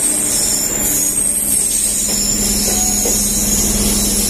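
Steady running noise of trains passing close on adjacent tracks, heard from the open door of a moving train: a WAP-4 electric locomotive and then its coaches rolling by. A steady low hum comes in about a second and a half in.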